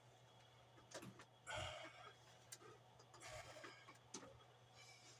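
Faint handling noises: a few light clicks and two short rustles, over a low steady hum.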